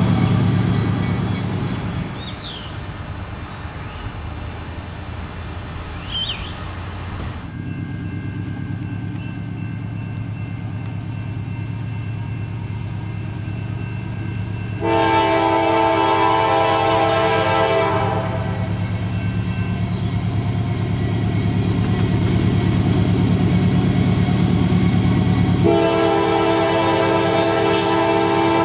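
CSX diesel freight locomotives approaching with their engines running, and the lead unit's air horn sounding a chord of several notes: a blast ending just after the start, a long blast of about three seconds about halfway through, and another long blast starting near the end.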